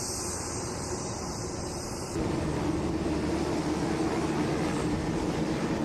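UH-60 Black Hawk twin-engine helicopter running, a steady rumble and hiss. About two seconds in it turns abruptly louder, with a steady hum underneath.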